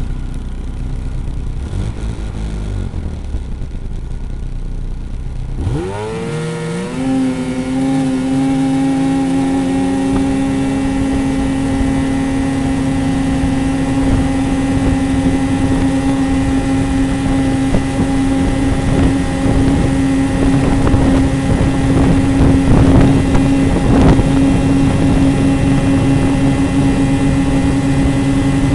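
Vehicle engine idling, then about six seconds in revving sharply up and holding a steady high pitch near 8,000 rpm while road speed keeps climbing. The nearly unchanging engine pitch as speed rises is typical of a CVT holding the engine at high revs.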